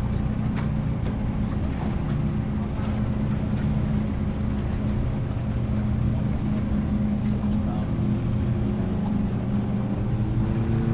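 Boat engine running steadily with a low, even hum. Near the end a higher tone comes in and rises slightly.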